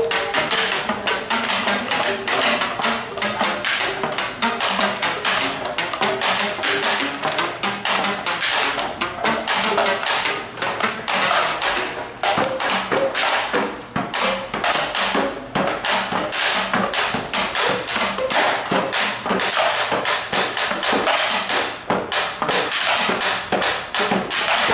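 Fast, busy tapping and drumming on cardboard rubber-band box instruments (RuBBaBox), with short plucked rubber-band notes, most noticeable in the first few seconds.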